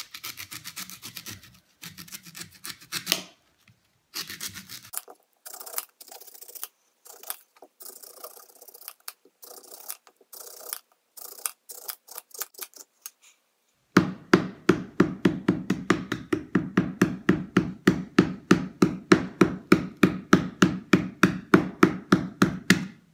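Kitchen knife shaving and scraping the husk off a young Thai coconut in short strokes, broken up by abrupt silences. About 14 seconds in, a steady rapid run of knocks, about four or five a second, as a screwdriver is jabbed over and over into the top of the coconut, searching for the soft spot.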